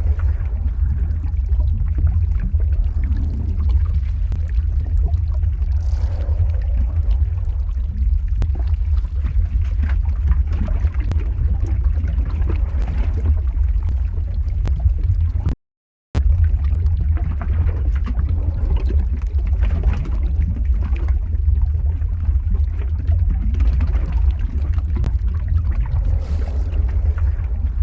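Lava flow ambience sound effect: a deep, steady rumble with a noisy, liquid-like wash and scattered faint ticks above it. It cuts out to silence for about half a second midway, then carries on unchanged, like the seam of a loop.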